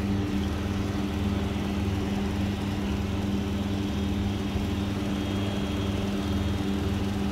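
Steady, even machine hum from a running motor, holding the same low pitch throughout.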